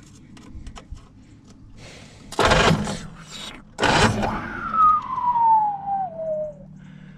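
Starter cranking the 1948 Diamond T's flathead six in two short, loud bursts about a second and a half apart, without the engine firing. A whine falling steadily in pitch over about two seconds follows.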